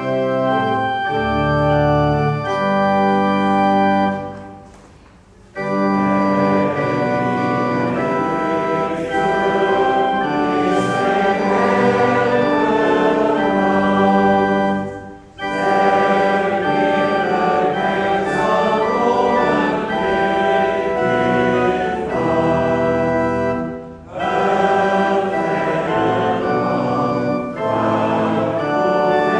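Small cabinet pipe organ playing a short introduction, then a congregation singing a hymn to the organ's accompaniment, with brief pauses between the sung lines.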